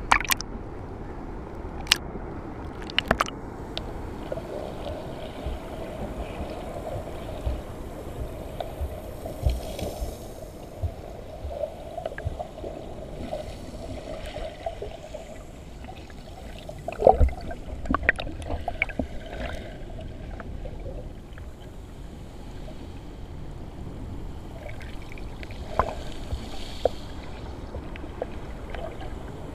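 Seawater heard at and under the surface, muffled: sloshing and gurgling stirred by a swimmer, with scattered sharp clicks and knocks, a cluster of them louder about midway.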